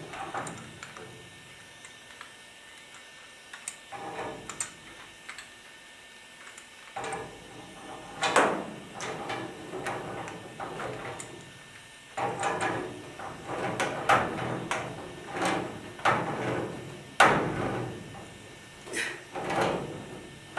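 A run of irregular knocks and clatters, like parts and tools being handled. They are sparse at first and come thick and fast from about eight seconds in, with two louder bangs.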